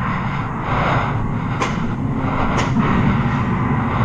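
Paintball markers firing: two sharp cracks about a second apart near the middle, over a steady low rumble.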